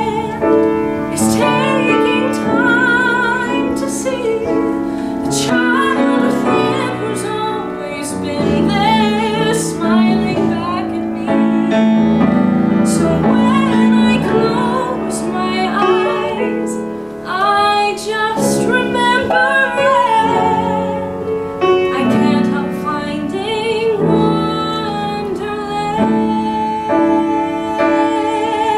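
Solo female voice singing a musical-theatre ballad with vibrato over piano accompaniment.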